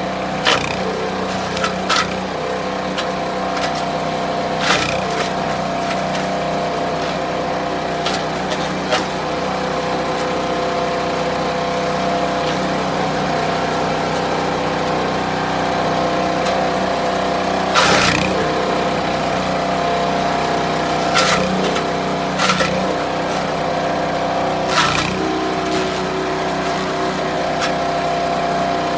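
Small gas engine of a Landworks wood chipper running steadily at high speed, with sharp cracks at irregular moments as willow branches are fed in and chipped; the loudest crack comes about 18 seconds in.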